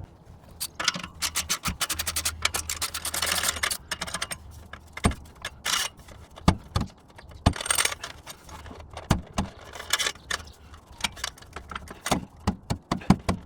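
Hand ratchet wrench clicking in quick runs as an exhaust pipe clamp is undone, with scattered sharp metallic clinks of tools and steel pipe.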